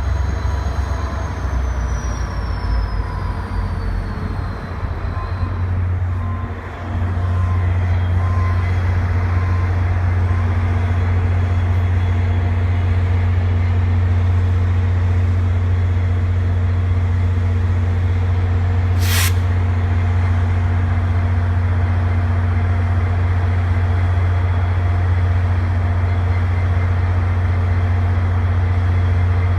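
Via Rail passenger train's diesel locomotive running with a steady low drone, which strengthens about seven seconds in. A high whine falls away over the first few seconds, and a short sharp hiss of air comes about two-thirds of the way through.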